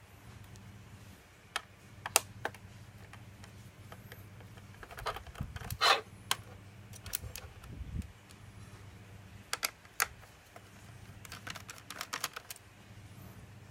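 Scattered sharp clicks and taps of a laptop's plastic casing and small parts being handled and unscrewed during disassembly, some in quick clusters, over a faint steady low hum.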